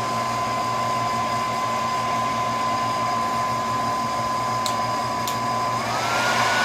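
Hand-held blow dryer running with a steady whine. About five seconds in there are two clicks, and then the whine rises in pitch as the dryer is turned up to a higher speed.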